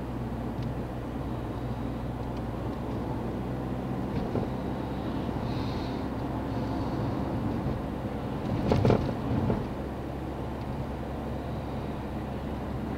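Car driving along, heard from inside the cabin: steady low engine and road rumble. A loud knock about nine seconds in, and a fainter one earlier.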